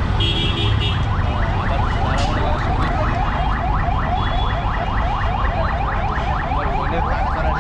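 An electronic alarm chirping rapidly, about seven sweeps a second, over a steady low rumble of street noise. A brief steady high tone sounds just at the start.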